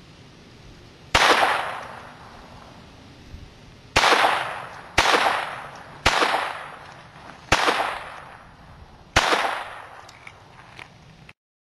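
Six handgun shots fired at an uneven pace, each ringing off in a short echo.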